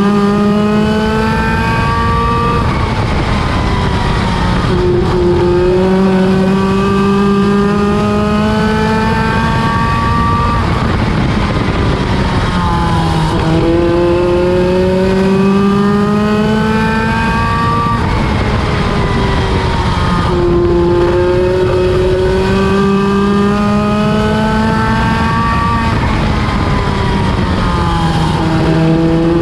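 Midget race car engine at racing speed, climbing in pitch as it accelerates, then backing off and dropping, about four times in a row as it laps the track.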